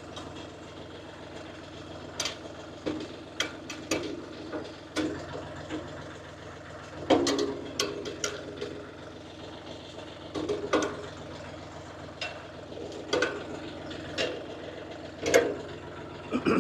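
A 25 hp UHI 254 tractor's engine idling steadily, with irregular sharp metal clanks and knocks from a Category 1 three-point hitch and top link being fitted to an implement.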